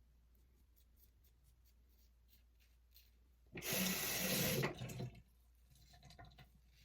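Bathroom sink tap running for about a second and a half, a little past the middle, between faint short scraping strokes of a safety razor cutting through lather and stubble.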